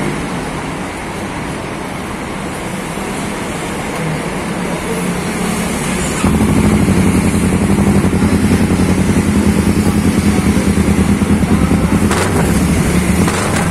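Kawasaki Ninja 650 parallel-twin engine running through an aftermarket slip-on exhaust that is being test-fitted for its sound. It starts lower, then about six seconds in jumps louder and holds a steady raised, throbbing note.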